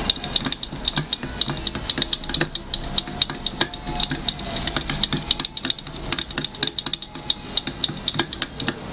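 Wooden stick stirring freshly mixed two-part epoxy casting resin in a plastic cup, tapping and scraping the cup's sides in quick, irregular clicks, several a second.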